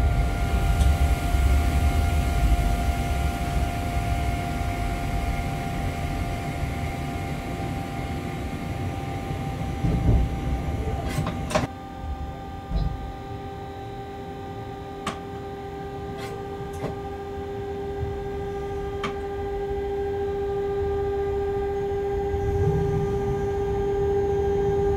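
Freight train running along the track, heard from the cab: a low rumble with steady electric tones. About halfway through there is a cluster of sharp knocks; after that the rumble drops and a steady hum grows slowly louder, broken by a few single clicks.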